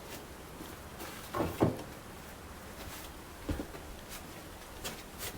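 Parts and tools being handled on the car: two clunks close together about a second and a half in, another a couple of seconds later, and light taps near the end.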